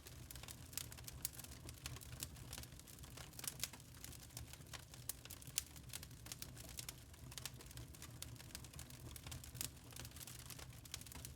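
Wood fire crackling in a fireplace: irregular sharp pops and snaps from the burning logs, several a second, over a steady low rumble.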